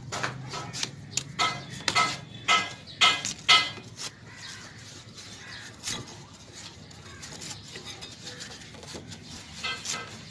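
A crow cawing repeatedly: a quick run of harsh calls, about two a second, through the first four seconds, one more a little later, and a few again near the end.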